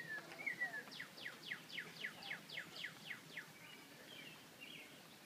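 A songbird singing: a few slurred whistled notes, then a quick run of about ten sharp down-sweeping notes at about four a second, then a few softer chirps.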